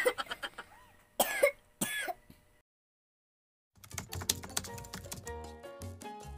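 A small girl coughs twice in quick succession, about one and two seconds in. After a short silence, background music begins.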